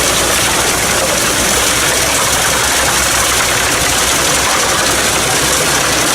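Fendt tractor engine running steadily, driving a Pezzolato PTH 700 G drum wood chipper through the PTO. A constant rushing hiss sits over a low hum.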